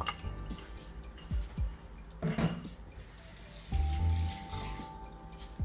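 Beaten eggs poured from a bowl into a hot kadai of fried vegetables and masala, a running liquid pour, with background music.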